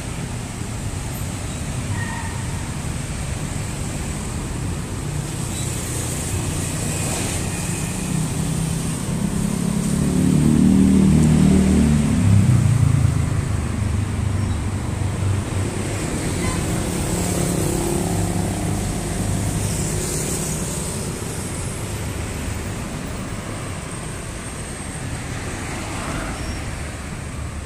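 Steady road traffic on a busy city street, cars running past. One vehicle's engine grows louder and passes close about ten to thirteen seconds in, the loudest moment.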